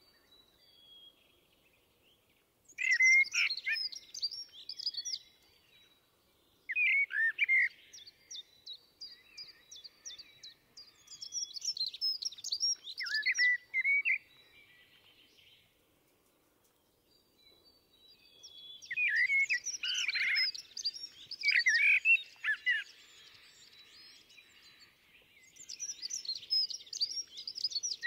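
Common blackbird singing: a series of song phrases of sliding, fluting whistles that run into higher, quicker twittering, with short pauses between phrases and a longer break around the middle.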